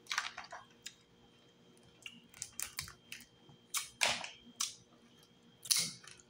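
Steamed crawfish being cracked and peeled by hand: a run of sharp, irregular shell clicks and crackles, some in quick clusters.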